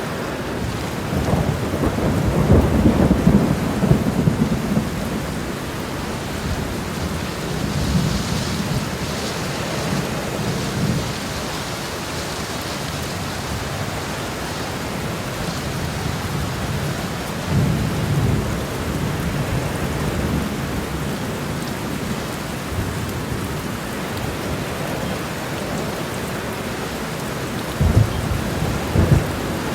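Heavy rain pouring onto a road: a steady, dense hiss of downpour, with deep low rumbles that swell and fade about four times.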